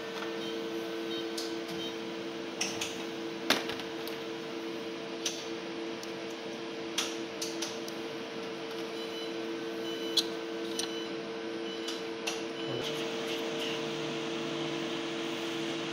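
Steady electrical hum of laboratory equipment, with scattered light clicks and taps from handling items on the bench. A lower drone joins near the end.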